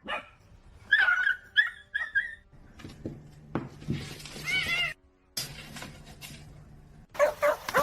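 A pet animal's short high-pitched calls: a quick run of three or four about a second in, another short run near the middle, and a new series of rapid calls starting near the end.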